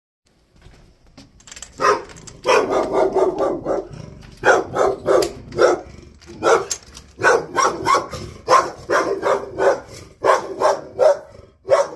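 A dog barking at an intruder, some twenty sharp, loud barks, often in quick runs of three or four, from about two seconds in: a ferocious, territorial bark.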